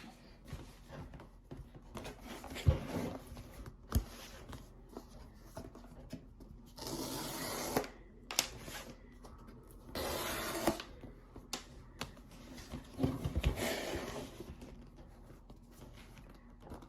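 Packaging being handled and opened: scattered knocks and clicks, with two longer tearing sounds of about a second each, around seven and ten seconds in.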